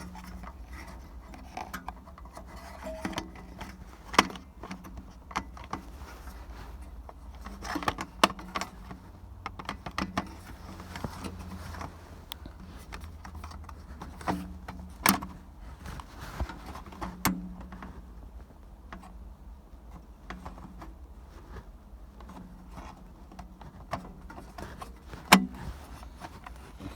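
Scattered clicks, knocks and light rattles of hand work on a van's dashboard radio wiring and connectors, with a sharp knock about 4 seconds in and another near the end, over a steady low hum.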